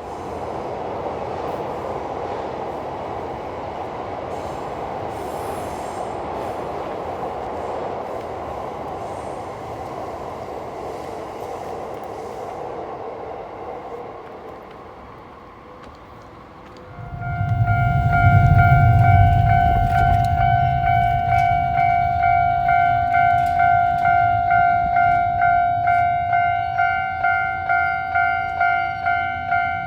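A train running past with a steady rumbling rush that fades away. About halfway through, a Japanese railway level crossing alarm starts ringing with evenly repeated electronic dings, about three every two seconds, over a low rumble that is loudest when the alarm begins.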